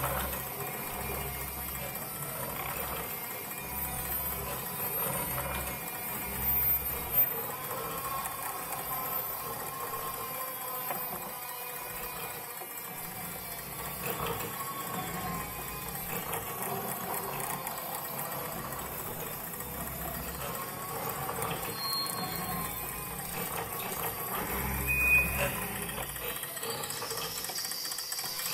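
Improvised noise music from motor- and relay-driven devices, a prepared electric guitar and laptop electronics: a machine-like whirring texture with drifting tones. A low hum switches on and off in roughly one-second blocks for the first several seconds and again near the end, with two brief louder jolts, about a quarter of the way in and near the end.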